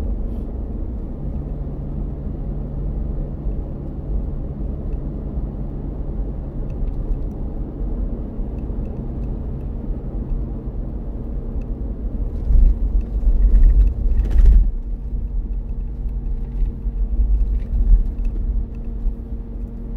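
Car driving, heard inside the cabin: a steady low rumble of tyres and engine with a constant low hum. About two-thirds of the way through the rumble swells louder for a couple of seconds, ending in a short knock.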